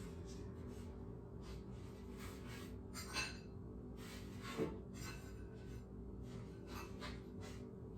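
Faint scattered clicks, rubs and light clinks of food and dishes being handled, over a steady low hum. The two clearest clicks come about three seconds in and just over four and a half seconds in.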